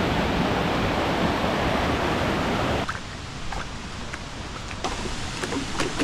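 A rushing stream cascading over rocks, loud and close, which cuts off suddenly about three seconds in. After that comes quieter flowing water with a few sharp knocks of footsteps on wooden boardwalk planks.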